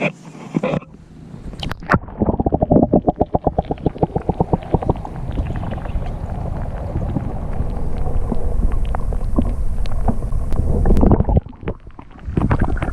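Water sloshing and gurgling around a camera microphone held underwater, heard as muffled, rapid burbling pulses for a few seconds, then a steady low rumble that dips briefly near the end. This is a pedal-drive kayak passing at full speed, and no propeller whine stands out: the owner hears nothing of the propeller.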